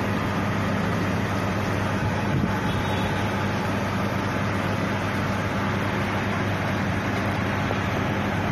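Airbus A330 airliner and its pushback tug on the ramp during pushback: a steady, unchanging roar with a constant low hum beneath it.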